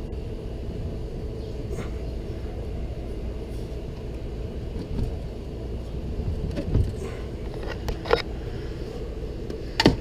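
Heavy RV refrigerator being pushed loose in its cabinet: a few dull knocks and bumps as it shifts, the sharpest near the end, over a steady low hum.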